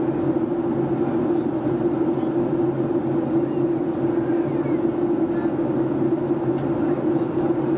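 Steady in-flight cabin drone of a Boeing 757-200 with Rolls-Royce RB211 engines: engine and airflow noise with a strong, even low hum that does not change.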